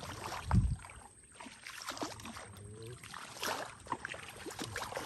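Shallow muddy water splashing and sloshing irregularly as people wade through it, with a dull thump about half a second in.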